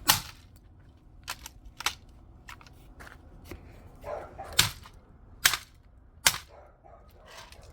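Sharp, separate blows striking a digital alarm clock covered by a fiberglass sheet. There is a loud one at the start and two lighter ones a second or so later, then three loud ones about a second apart.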